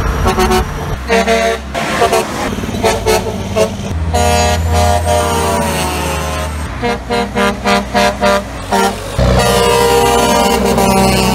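Grover 2000/2001 rectangular air horns on Kenworth semi trucks sounding a multi-tone chord, over diesel engine rumble. There are a few short toots, a long blast about four seconds in, a quick run of short toots, and a held blast near the end.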